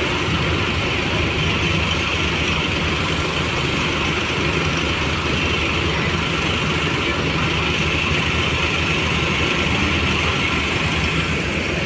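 Diesel engines of parked intercity coaches idling steadily: a low, even hum with a steady hiss above it.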